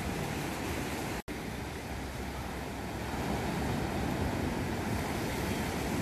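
Small waves breaking and washing up a sandy beach, a steady surf. The sound drops out for an instant about a second in.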